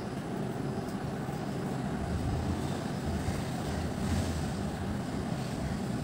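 Steady low background rumble that holds at an even level throughout, with no distinct events.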